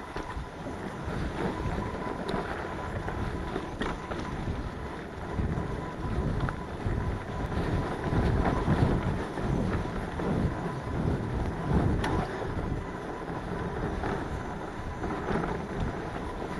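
Mountain bike riding fast down a dirt singletrack: tyre rumble on the trail mixed with wind buffeting the microphone, with a few sharp clicks and rattles from the bike over bumps.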